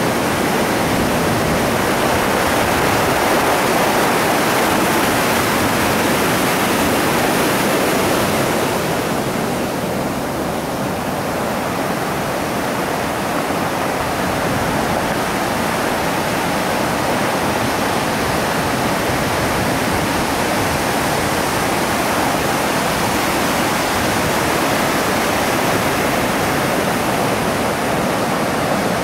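Ocean surf breaking and washing ashore, a continuous steady rush of noise that eases slightly about ten seconds in.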